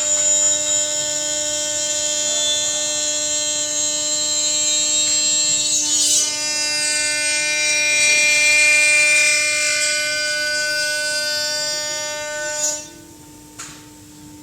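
Large CNC machine running with a steady high-pitched whine made of many even tones, over a constant low hum. The whine stops about 13 seconds in, leaving the low hum and a few light clicks.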